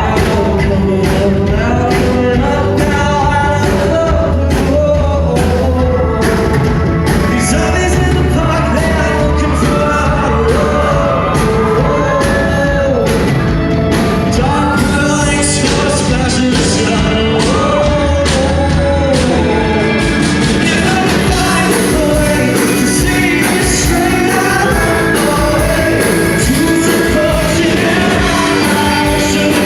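A rock band playing loud live music, with a lead vocalist singing over bass and drums.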